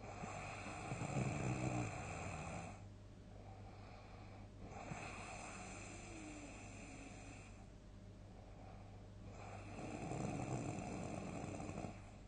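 A sleeping person snoring loudly. There are two rattling snores, one at the start and one near the end, with a softer breath between them.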